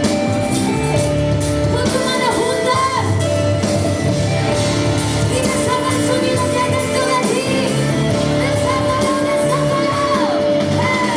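Music with singing: a song played over a band, with sung phrases that glide up and down, loud and steady throughout.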